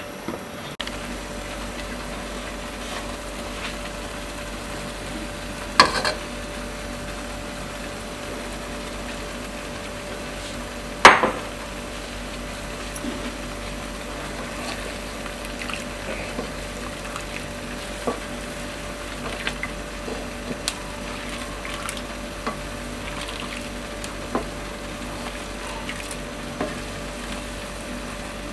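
Pot of curry noodle broth simmering with a steady bubbling hiss, broken by two sharp knocks against the metal pot about six and eleven seconds in, then light ticks and scrapes of a ladle stirring the noodles.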